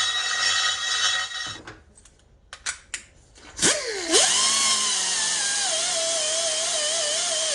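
A power tool runs with a steady whine and stops about a second and a half in. A few clicks follow. Then background music starts with a swooping, wavering lead tone.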